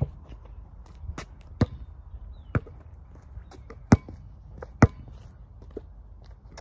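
Basketball bouncing on a concrete court as it is dribbled: a handful of sharp, unevenly spaced bounces, the loudest about four and five seconds in.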